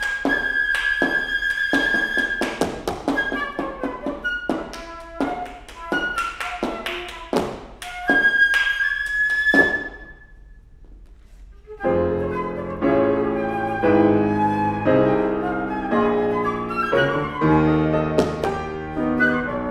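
Flute and piano playing a contemporary chamber piece. Short, sharp staccato attacks are mixed with a few held flute notes. A brief lull falls just past the middle, then the piano comes in with dense chords under the flute.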